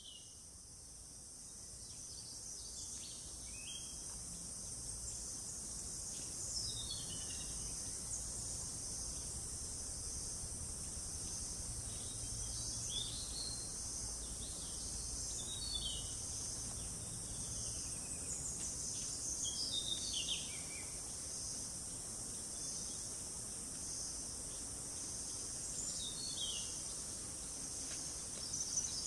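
Forest ambience: a steady high-pitched drone of insects, fading in over the first few seconds, with short downward-sliding bird calls every few seconds.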